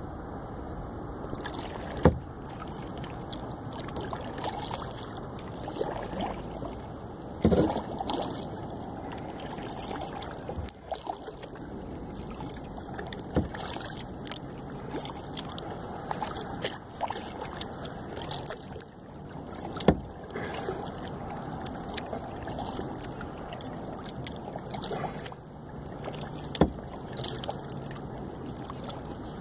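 Kayak being paddled on calm water: the paddle splashes and drips steadily, and a sharp knock comes about every six seconds, five in all.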